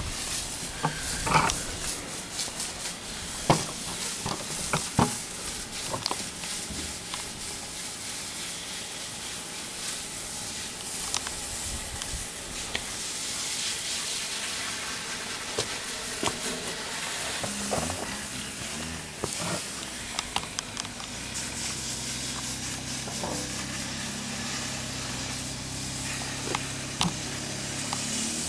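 Hissing spray from a soft-wash hose wand wetting a clay tile roof, with a few sharp clicks in the first few seconds. About three-quarters of the way through, a steady engine hum comes in and starts to rise in pitch at the very end.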